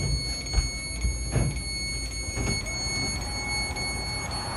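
Door chime of a Caltrain Stadler KISS electric multiple unit: a loud, high-pitched electronic tone held steadily, cutting off near the end, the warning that the doors are operating.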